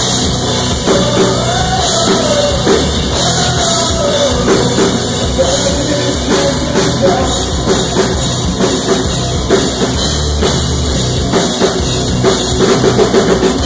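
Live rock band playing loud and full, with drum kit and electric guitars, and a run of harder, accented drum hits near the end.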